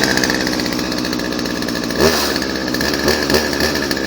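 Craftsman 16-inch 30cc two-stroke chainsaw engine running steadily, with short revs about two seconds in and a couple more near the end.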